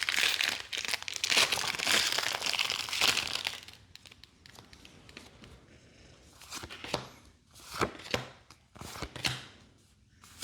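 Foil booster pack wrapper torn open and crinkled for about four seconds, then quieter, with a few short snaps and flicks as the cards are handled.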